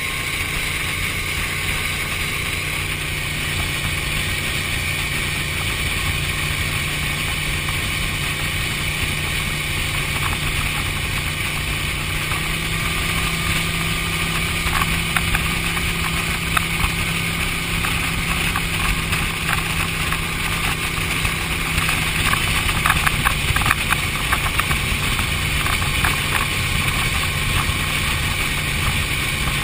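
Eliminator Daytona speedboat's engine running steadily under way, with a constant low hum over the rush of water and wind. A few short sharp taps come through around the middle.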